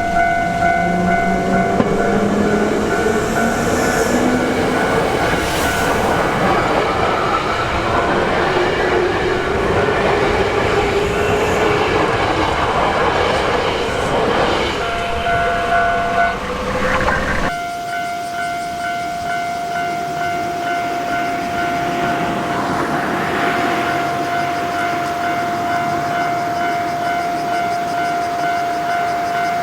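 Japanese level-crossing warning bell ringing steadily as a Hankyu Kyoto Line train passes, with wheel rumble, clatter and a rising motor whine. The train noise cuts off suddenly about two-thirds of the way in, and the crossing bell keeps ringing.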